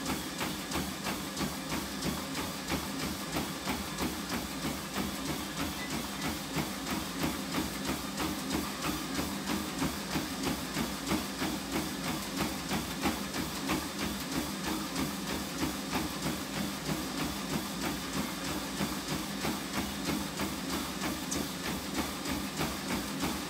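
Running footfalls striking a treadmill belt in a steady rhythm, about three steps a second, over the steady hum of the treadmill's motor.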